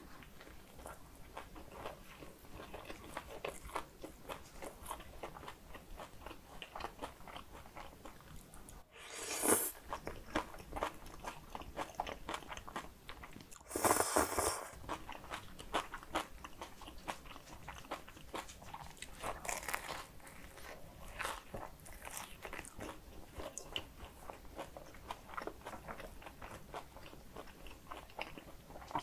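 Close-miked eating sounds: biting and chewing a grill-marked bread roll, with many small crackly mouth clicks. Two louder slurps come about nine and fourteen seconds in, the second from a spoonful of spicy kimchi bibim noodle sauce.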